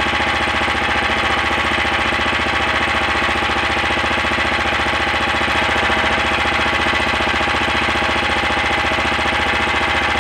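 A small engine running steadily with a fast, even chugging.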